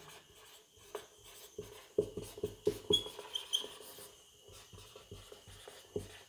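Marker pen writing on a whiteboard: a run of short, irregular taps and scratches of the pen strokes, with a few brief high squeaks of the tip about three seconds in.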